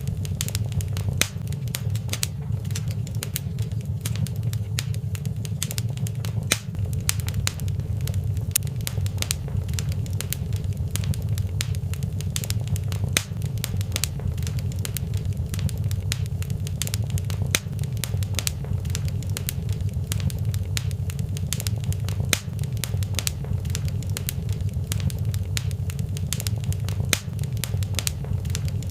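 Wood fire burning in a fireplace: frequent irregular crackles and pops over a steady low rumble.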